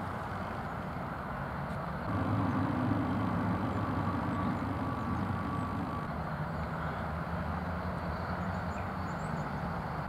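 Steady rumble of road traffic, growing louder from about two seconds in as a vehicle passes with a faint whine, then settling back.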